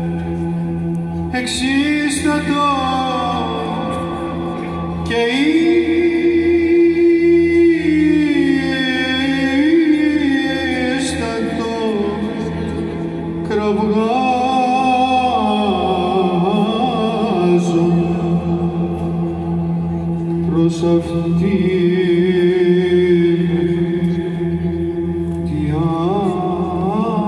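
Byzantine chant by a male choir: a solo voice sings an ornamented melody over the choir's steady held drone (ison), with the melody swelling louder and holding long notes about five seconds in.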